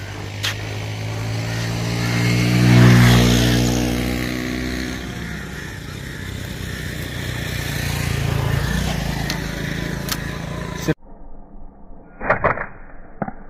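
A motor vehicle drives past, its engine growing to its loudest about three seconds in and then fading, with another passing more quietly a few seconds later. Near the end the sound cuts to a slingshot shot: a sharp snap of the released bands, then a second short crack a moment after.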